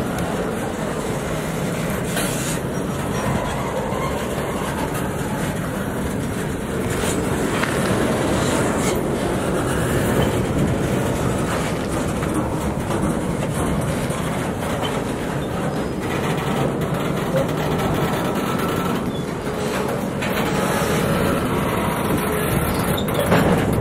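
Freight train boxcars rolling past close by: a steady rumble of steel wheels on rail, with irregular clacks as the wheels cross rail joints.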